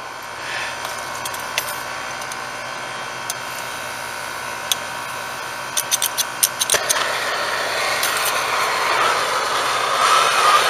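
Brazing torch flame hissing steadily while heating a copper refrigerant line joint at the condenser's service valve. A quick run of sharp clicks comes about six seconds in, after which the hiss grows louder.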